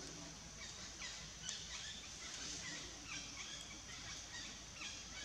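Outdoor animal ambience: scattered short, high chirps over a steady high hiss.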